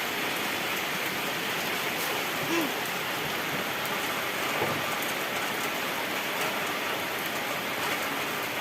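Steady heavy rain falling, an even hiss with no break.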